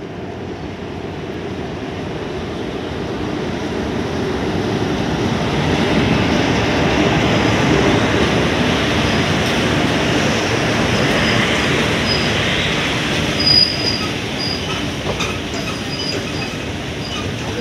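Freight train passing close by, two electric locomotives and then loaded flat wagons: a loud steady rumble of wheels on rails that builds over the first few seconds. From about halfway through come short, high wheel squeals and a few sharp clacks.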